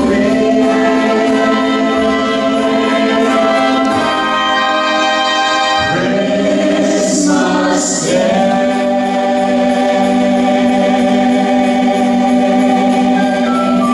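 A man and a woman singing a Christmas song together, holding long notes, with new phrases starting about six and eight seconds in.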